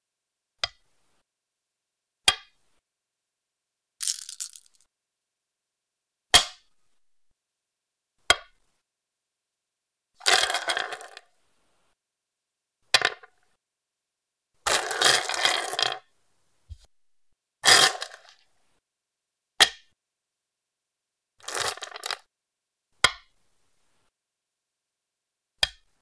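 Go stones on a wooden board: single stones set down with sharp clicks, alternating with about five longer clatters of several stones jumbled together, each effect separated by silence.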